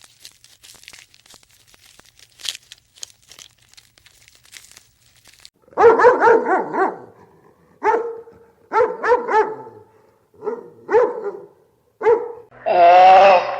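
Dog barking in short bursts of several barks at a time, starting about halfway through after a few seconds of faint scattered clicks, with a longer drawn-out call near the end.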